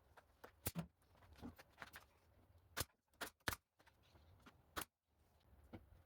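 A few light, sharp knocks and clicks at irregular intervals, two close together near the start, a cluster around the middle and one more near the end, over a faint low hum.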